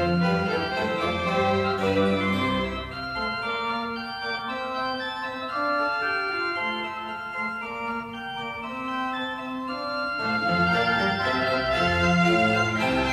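Background music of slow, long-held chords with an organ-like sound. The low notes drop away for a few seconds mid-way and come back fuller about ten seconds in.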